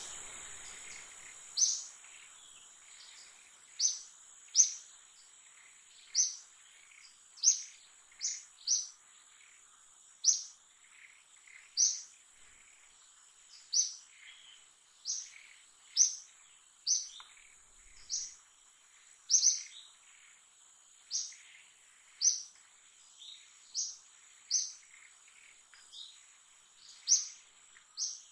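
A bird repeating short high chirps every second or two over a steady high-pitched drone.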